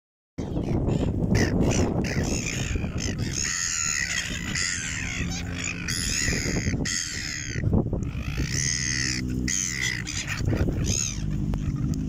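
A flock of gulls calling, with harsh, repeated squawks that overlap one another almost without a break.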